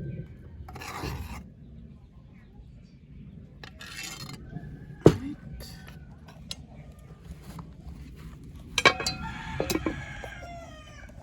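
A rooster crowing once near the end, a call of about two seconds that drops in pitch at its close. A sharp knock about halfway through is the single loudest sound, with brief rustling before it.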